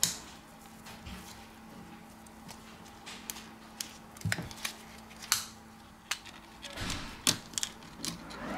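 Scattered sharp plastic clicks and snaps as the Samsung Galaxy A40's plastic rear housing (midframe) is worked off its retaining clips and lifted away, over faint background music.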